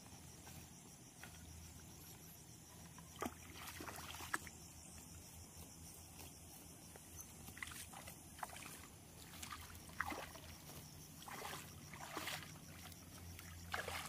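Faint, intermittent sloshing and splashing of shallow muddy paddy water as someone wades and drags a wooden plough and rope through it, with a few sharp knocks.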